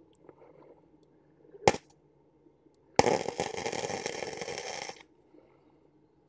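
A sharp click, then about two seconds of loud, steady crackling from an electric arc welder laying a spot weld, which cuts off abruptly.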